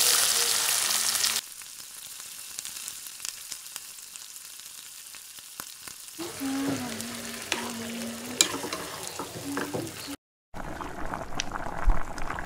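Chopped onions tipped into hot oil in an iron karahi sizzle loudly for about a second and a half, then keep frying more quietly. Later there is stirring, with a few clinks and scrapes of a spoon against the pan.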